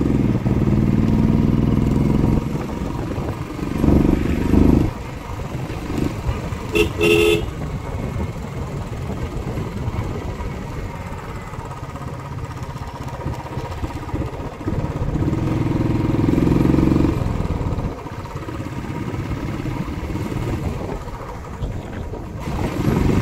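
Royal Enfield Classic 350's single-cylinder engine running under way, pulling harder in a few louder stretches. A horn gives two short beeps about seven seconds in.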